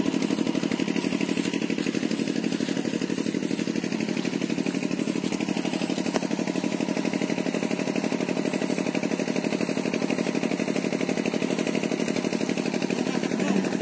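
A small engine running steadily with an even, fast pulse.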